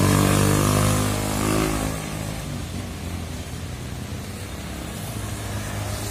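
Motor scooters and motorcycles passing close by, the engine note sagging in pitch and fading after about two seconds. It gives way to a steady, quieter traffic noise with tyre hiss on the wet road.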